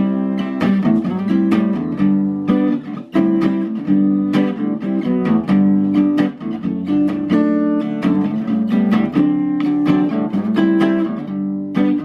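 Acoustic guitar being played, plucked notes and chords ringing in a steady rhythm.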